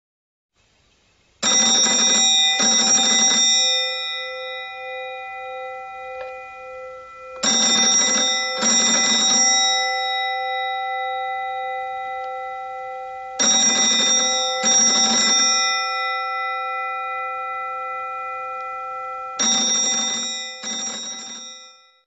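Phone ringtone: a bell-like double chime, two strikes about a second apart, repeated four times about every six seconds, each time ringing out and fading before the next.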